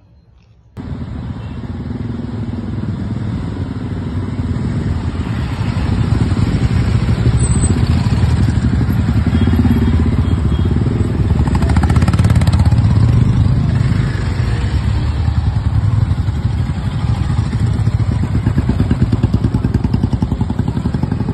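Engines of a group of motorcycles riding together in a column, running loudly. They start about a second in, after a brief hush, and grow louder a few seconds later.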